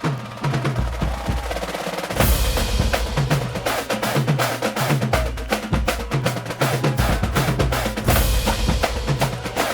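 Theme music with a driving drum beat and bass line, starting suddenly at the opening.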